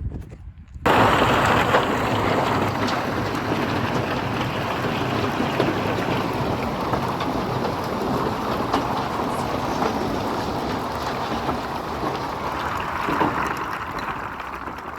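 Load of riprap rock sliding and pouring out of a dump truck bed: a dense clatter of many stones that starts abruptly about a second in and eases off a little near the end.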